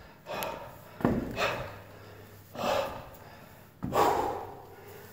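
A man's hard, heavy breathing from the effort of climbing stairs: four loud breaths roughly a second and a bit apart, with a thump about a second in.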